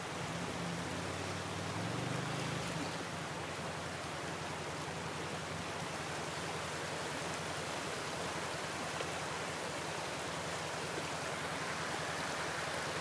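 Steady rush of a fast river's flowing water. A faint low hum sits under it for the first few seconds, then fades.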